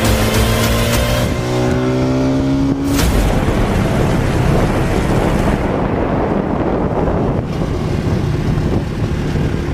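Aprilia GPR250R motorcycle engine accelerating, its pitch rising steadily for about three seconds, then a sharp click and a steady rushing noise for the rest of the time, with the engine faint beneath it.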